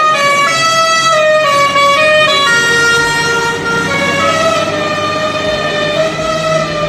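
A truck's musical horn playing a tune: a string of held notes that step up and down in pitch, about two notes a second, loud throughout.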